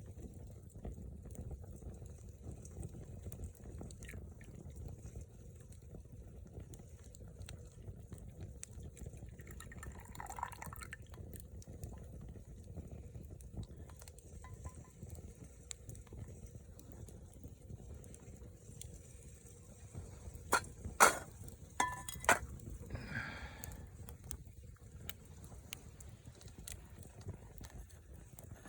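Liquid sounds, bubbling or pouring, over a steady low rumble, with three sharp clinks about three quarters of the way through.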